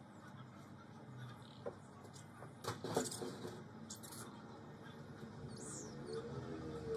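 Faint knocks and bumps of a wooden beam being carried onto a timber deck and handled by a stepladder, the loudest knock about three seconds in, with a short high chirp near the end.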